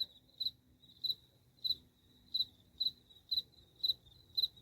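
A male field cricket, very likely Gryllus fulvipennis, singing: short high chirps at one steady pitch, repeated about twice a second.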